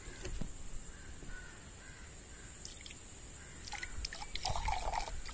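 Hypochlorite bleach poured from a jug into a drinking glass, with a few light clicks and a short splashy pour about four seconds in.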